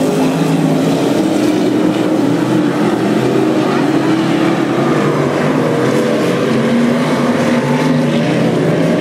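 Several street stock race cars' engines running together at racing speed, a steady din of overlapping engine notes that drift slightly up and down in pitch.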